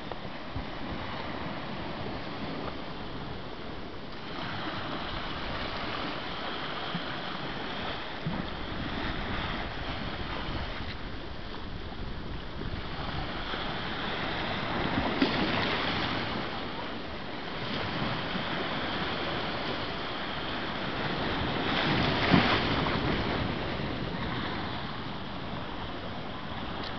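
Sea surf washing in over a rocky shore, swelling and falling back every few seconds, with the two loudest surges past the middle and about three-quarters through.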